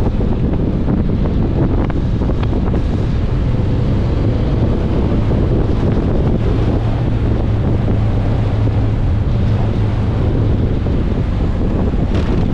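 Heavy wind noise buffeting the microphone of a motorcycle moving at road speed, with a steady low drone underneath.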